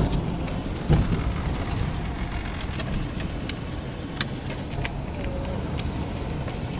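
Chevrolet Blazer plow truck's engine running steadily, heard from inside the cab as a low rumble, with a few sharp clicks scattered through it.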